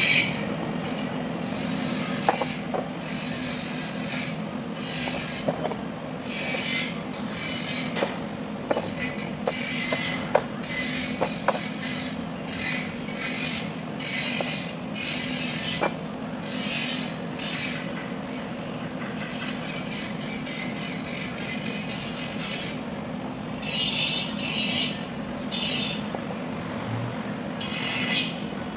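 Hand ratchet clicking in repeated short strokes, with pauses between them, as bolts are turned on a Kubota B1502 tractor's front axle gear housing. A few sharp metal clicks and a steady low hum run underneath.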